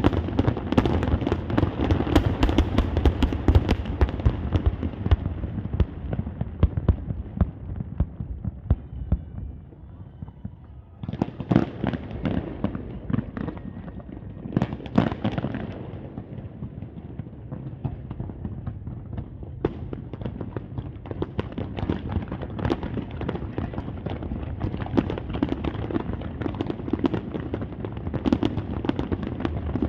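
Fireworks display: rapid booms and dense crackling of aerial shells, thinning to a short lull about a third of the way in, then fresh loud bursts and a steady run of crackles and booms.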